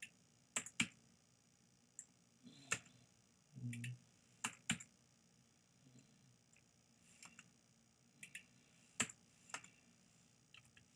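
Scattered sharp clicks of computer mouse buttons and keys, several coming in quick pairs like double-clicks, with a short low hum a little before the middle.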